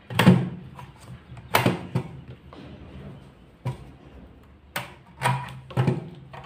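Sheet-metal casing of a car stereo head unit knocking and clicking against the tabletop and hands as it is picked up and turned over. About seven sharp, irregular knocks.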